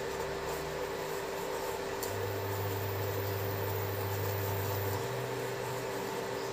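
Induction cooktop running on low heat: a steady hum with a constant whining tone, and a deeper hum that comes in for about three seconds in the middle.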